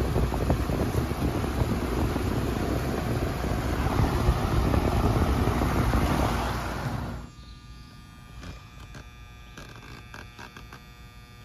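Condensing unit's condenser fan running with a steady rushing noise while the locked-up compressor stays off, cutting out abruptly about seven seconds in. A quieter steady electrical hum and a few light clicks follow.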